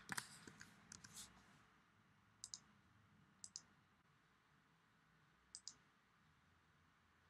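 Faint computer mouse clicks against near silence: a few at the start, then three short press-and-release clicks spaced a second or two apart.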